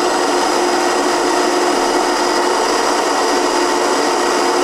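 High-speed countertop blender running steadily at full speed, a steady motor whine over churning liquid, as it blends a warm lobster butter sauce to re-emulsify it.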